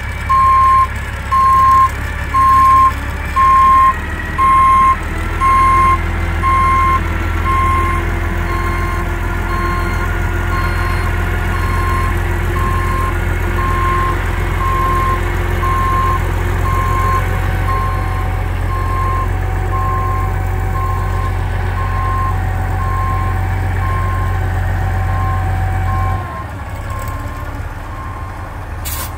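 Mitsubishi MG300 motor grader reversing: its diesel engine running under load while the reversing alarm beeps steadily, about three beeps every two seconds, growing fainter. A few seconds before the end the engine drops back and the beeping stops.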